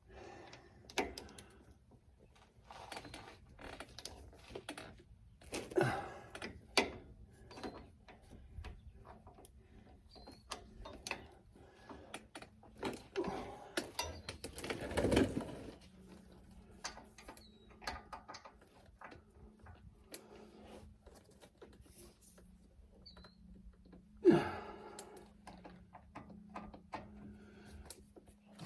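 Hand ratchet clicking in short runs while bolts on a sway bar bushing bracket are tightened, with scattered knocks of tools and metal and a few louder clunks. A faint steady hum comes in about halfway through.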